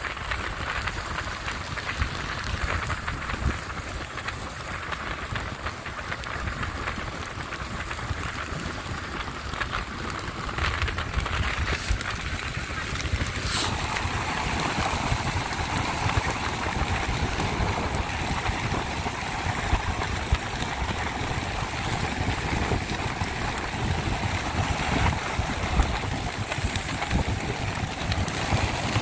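Speedboat under way, heard from on board: a steady low engine rumble under the rushing hiss of water and wind along the hull. About halfway through there is a short click, and the rushing grows fuller and louder from then on.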